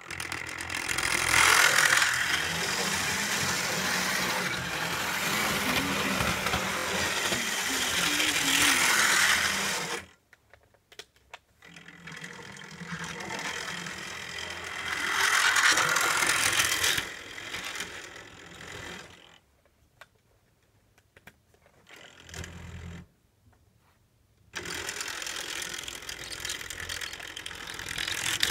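Model train locomotive's small electric motor whirring and its wheels rattling over the track joints as it runs around the layout, loudest when the train passes close. The sound starts suddenly, drops out for about two seconds at around ten seconds in, and fades almost to nothing for a few seconds past the middle before coming back.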